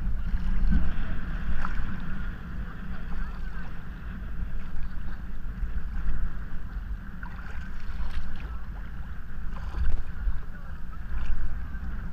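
Rushing whitewater around a raft, with a heavy low rumble of water and wind buffeting a GoPro's microphone. The sound swells and eases throughout, with a few short knocks and splashes.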